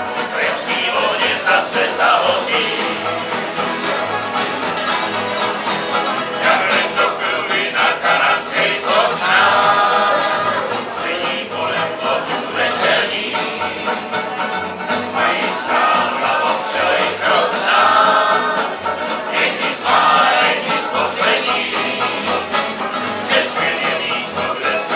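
A group of men singing together to several strummed acoustic guitars, a banjo and an upright bass, played live in a room.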